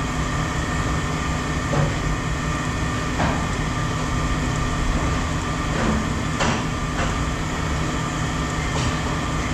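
Steady rumble of running scrap-yard machinery or an idling engine, with a few faint knocks scattered through.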